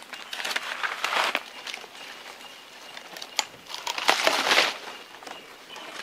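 Leaves and branches rustling in bursts as a long wooden pole is jabbed up into a tree's foliage to knock down fruit, with a sharp click about three and a half seconds in and the loudest rustle just after four seconds.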